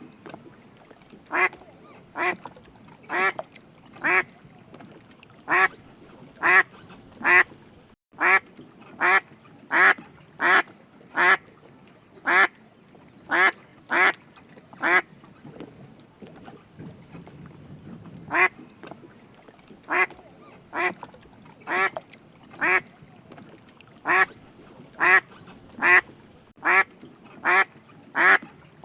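Duck quacking: a long series of short, single quacks, a little faster than one a second, with a pause of about three seconds midway.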